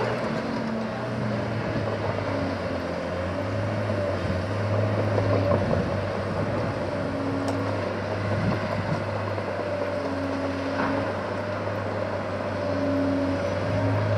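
Diesel engines of heavy construction machinery running steadily: a low drone that swells and fades, with a steady whine above it.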